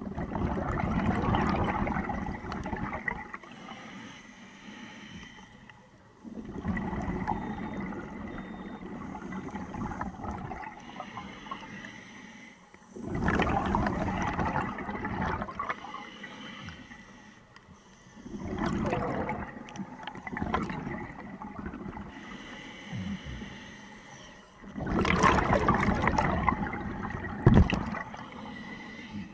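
Scuba diver breathing through a regulator underwater: a loud rush of exhaled bubbles about every six seconds, five times, with quieter sound between the breaths. A short bump near the end.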